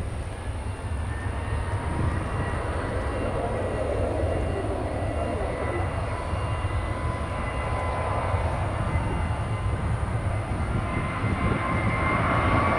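Jet airliner engines: a steady low rumble with a thin whine on top, growing louder toward the end as the whine brightens.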